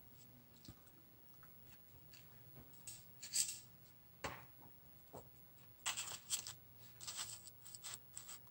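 Faint handling noises of paper and a plastic stencil sheet on a craft table: scattered rustles and light taps, busier in the last few seconds as the sheet is laid down on the journal page.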